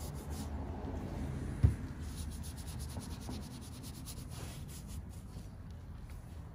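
Soft detail brush scrubbing soapy foam on the underside of a truck's hood, a steady rubbing that eases near the end. A single sharp knock comes about a second and a half in.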